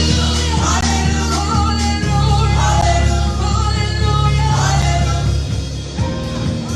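Gospel worship music: voices singing over a band, with held bass notes that change a couple of times.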